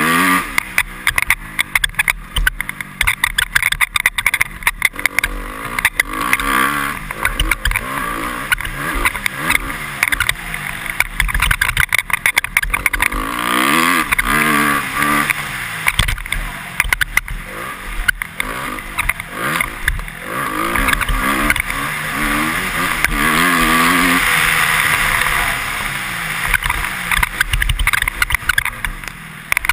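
Honda CRF250R's single-cylinder four-stroke motocross engine revving up and falling off again and again as the rider works the throttle over the track, with long stretches held at high revs. Many sharp knocks and crackles cut through it, heard through a helmet-mounted camera.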